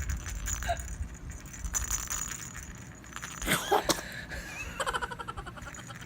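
A baby sneezing once, a short sudden burst about three and a half seconds in, over a low rumble; faint baby vocal sounds follow near the end.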